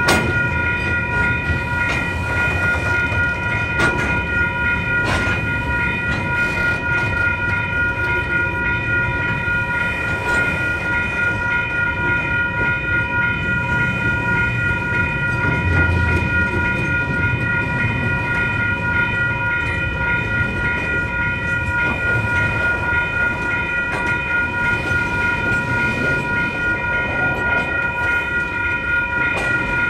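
Freight train wagons rolling steadily past a level crossing: a low rumble with occasional wheel knocks over rail joints. Over it the crossing's alarm bell rings continuously as a steady, pulsing high ringing.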